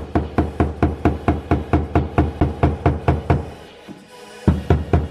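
A hammer tapping a screwdriver against the tabs of the fuel pump locking ring on a Toyota Supra's fuel tank, quick even blows about four or five a second, with a pause of about a second late on. The ring is being driven round to tighten it, because it is loose enough to let the fuel sender move.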